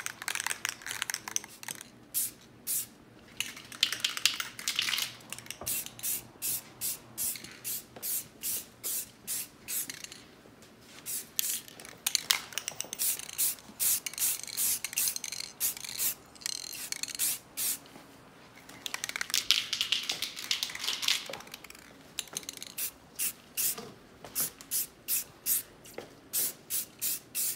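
Aerosol can of high-temperature primer spraying onto brake calipers. It goes in many short hissing bursts, about two a second in places, with a couple of longer hisses.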